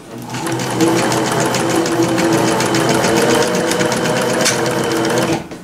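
1975 Singer Fashion Mate 360 sewing machine running at speed: a steady motor hum with rapid, even ticking of the needle strokes, winding up in the first second and stopping near the end. It runs without forming stitches because it has been threaded wrongly.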